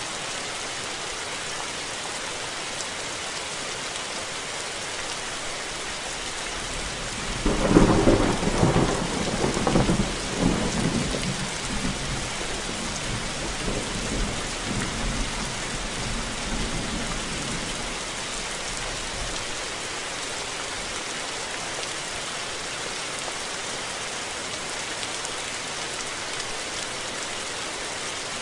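Steady rain falling, with a thunderclap breaking about seven and a half seconds in and rumbling away over the next ten seconds.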